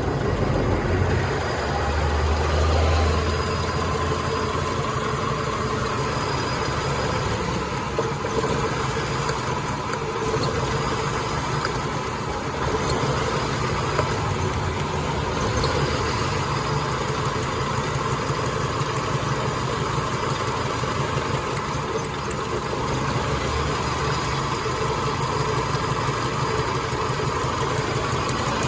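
Car engine idling steadily with a misfire, the cylinder 'missing'.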